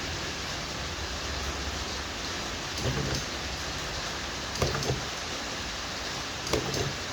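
Battery spot welder firing pulses to weld nickel strip onto the negative terminals of 18650 cells: four short snaps, each with a brief hum, over a steady hiss.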